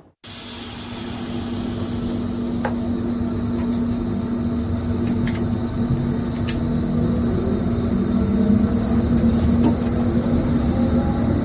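Train running, heard from inside the driver's cab: a steady low hum with one held tone, building up over the first couple of seconds, with scattered faint clicks.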